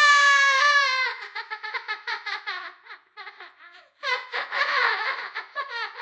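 A young child laughing hard: a long high-pitched squeal, then rapid bursts of laughter that trail off, and a second fit of laughter about four seconds in.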